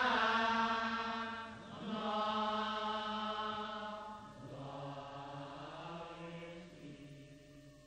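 A wordless chanting voice singing long held, droning notes in three phrases. The last phrase is lower in pitch and fades away near the end.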